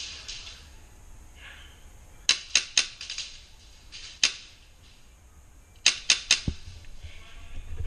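Airsoft gun shots, sharp snaps fired in quick strings: four a quarter-second apart about two seconds in, a single shot near the middle, and three more near the end.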